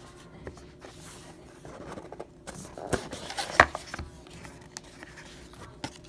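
Cardboard and paper packaging of a sealed trading card box being handled, scraped and rustled as it is opened, with scattered small clicks and one sharper snap about three and a half seconds in.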